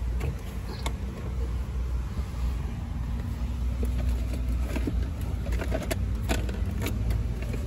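Low, steady rumble of a car's engine idling, heard inside the cabin, with a few light clicks and knocks as the phone is moved around.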